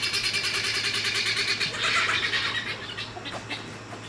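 A flock of farm poultry calling as they rush in: a fast, even chatter of squawks that fades over the last second or so.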